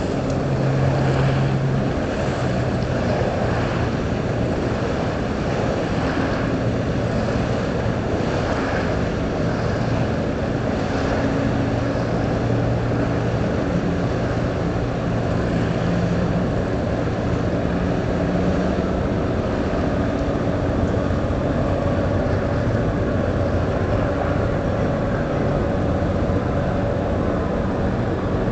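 Low, steady drone of the cruise ship Norwegian Pearl's machinery as the ship passes close by, mixed with water lapping and wind buffeting the microphone.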